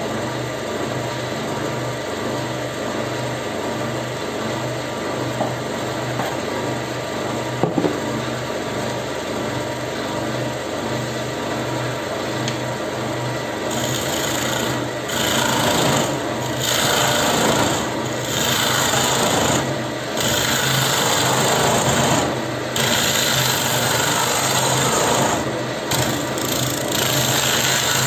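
Wood lathe running with a steady motor hum while a hand-held turning tool cuts into a spinning wooden bowl blank. About halfway through, the cutting gets louder and harsher, coming in repeated passes with short breaks between them.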